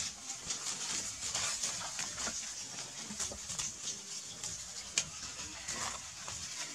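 Dry fallen leaves crackling and rustling under the feet of baby macaques scampering across them, with one sharper click about five seconds in.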